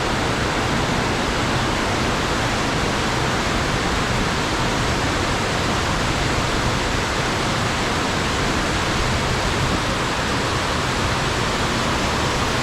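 Steady, even rush of fast-flowing water, swollen after a storm.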